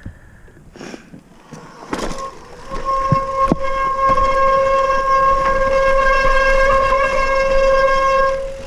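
Mountain bike disc brakes squealing as they are held on a steep descent: a steady squeal that starts about two seconds in and holds for some six seconds, over the rumble and rattle of the tyres on loose gravel.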